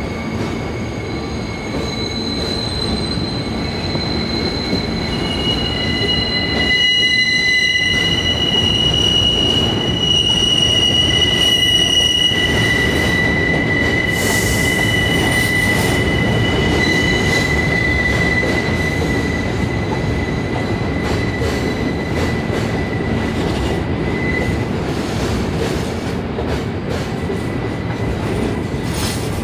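New York City subway train passing on curved track, its steel wheels squealing in several long, steady high-pitched tones over the rumble of the cars. In the second half, clicks from the wheels over rail joints come through.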